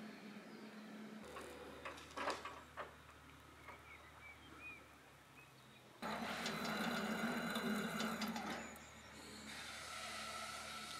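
Motorised cable-logging carriage on a skyline cable whirring steadily as its winch pays out line to lower the choker slings, starting suddenly about halfway through and easing near the end. A few sharp snaps or knocks come earlier, around two seconds in.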